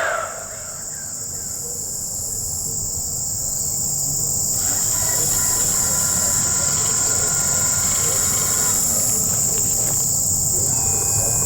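Insects buzzing in one steady, high-pitched drone that stops shortly before the end, over a faint low rumble.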